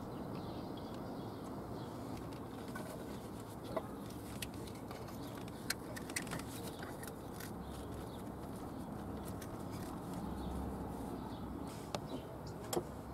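Quiet work sounds: a few light, scattered clicks and taps as intake-manifold gaskets, nuts and washers are handled on the cylinder-head studs, over a faint steady background.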